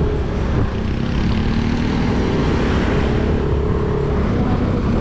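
Motorcycle engine running steadily while riding along a road, under a rushing noise of wind and road.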